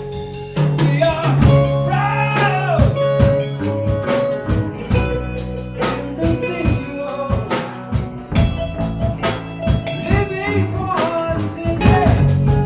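Live band performing a slow song: a sung vocal line over electric guitar, sustained low notes and a drum kit keeping a steady beat.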